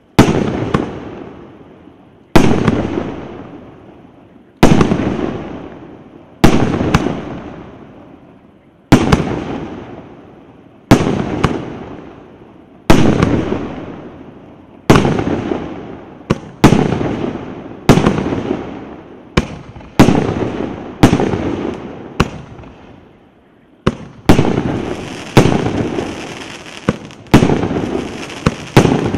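A 36-shot, 2-inch firework cake (C9012 'Red Square') firing: a series of sharp bangs of aerial shells bursting, each followed by a rolling echo that dies away over a second or two. The bangs come about every two seconds at first, then faster, about one a second, and over the last few seconds a hiss of crackling trails runs under them.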